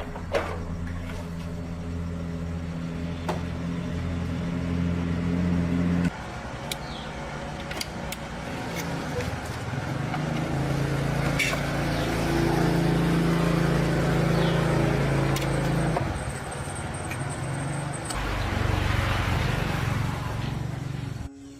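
A motor vehicle engine running steadily, its sound changing abruptly a few times, with a few sharp clicks.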